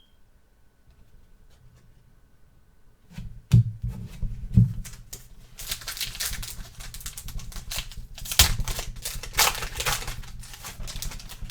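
Trading-card pack wrapper crinkling and tearing open, with the cards being handled. A few sharp knocks about three and a half seconds in, then dense crackly rustling.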